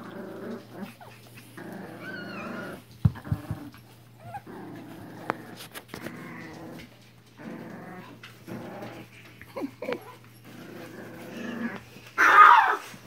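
Porkie (Pomeranian–Yorkie mix) puppies play-growling in short runs, one after another, with a louder, higher cry near the end.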